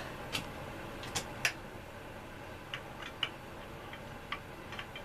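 Irregular light metallic clicks and taps, a dozen or so spread unevenly, from short bolts being handled and tried in their holes. The bolts are too short to reach through.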